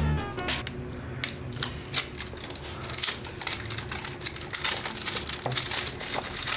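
Clear plastic shrink-wrap being torn and peeled off a cardboard product box: an irregular run of crackles and crinkles.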